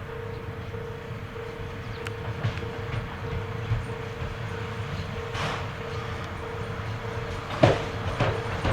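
Steam-hauled passenger train of the SL Moka running on the rails: a steady low rumble with a faint steady hum, and wheels knocking over rail joints, the loudest knocks coming near the end.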